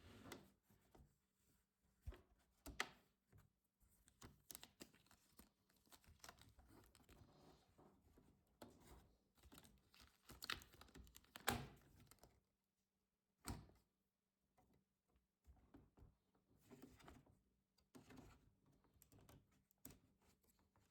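Faint, irregular clicks, taps and light scraping of a laptop's plastic and metal parts being handled and worked on during disassembly, with a few sharper ticks along the way.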